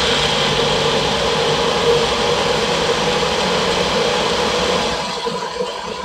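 A personal bullet-style blender running steadily as it blends a berry and yogurt smoothie in its upturned cup, easing slightly about five seconds in.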